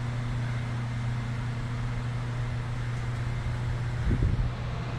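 Steady mechanical hum with a constant low drone over a hiss, and a brief low thump about four seconds in.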